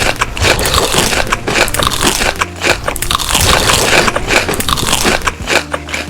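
Close-miked crunching of crisp food being bitten and chewed, a loud, dense run of irregular crackles.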